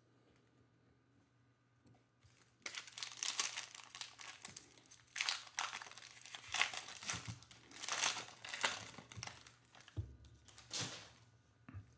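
Foil wrapper of a Panini Mosaic basketball card pack being torn open and crinkled by hand, in a run of crackling bursts that starts a few seconds in. A single soft knock comes near the end.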